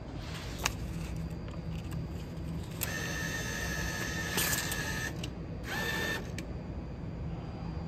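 Ticket machine's bill acceptor drawing in a banknote: a motor whirring with a steady whine for about two seconds, stopping, then running briefly again, with a few clicks, over a low steady hum.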